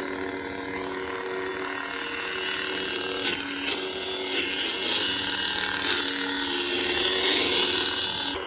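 Golden Harvest V3 lightsaber soundboard playing the steady electric hum of a lit blade through the hilt's small speaker, swelling and wavering a little as the hilt is turned.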